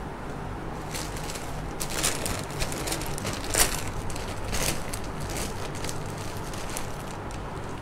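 Rustling and crinkling of plastic-packaged clothes being handled, a handful of short crackles with the loudest about three and a half seconds in, over a steady low room hum.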